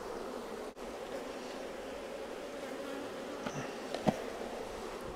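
Honeybees buzzing in a steady hum around an opened, crowded hive. There is a short click about four seconds in.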